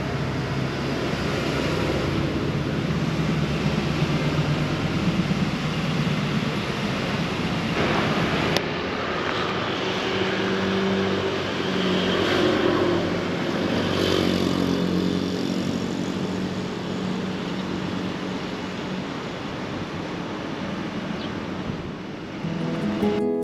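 Steady road-vehicle noise: an engine running with road rumble, its low hum shifting in pitch now and then. The sound changes abruptly about a third of the way in.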